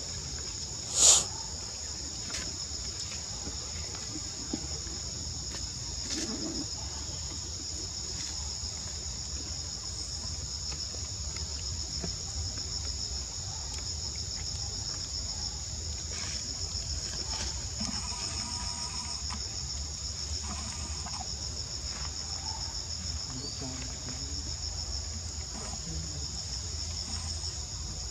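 Steady, high-pitched chorus of insects trilling with a fast pulse, unchanging throughout. One sharp click about a second in stands out above it.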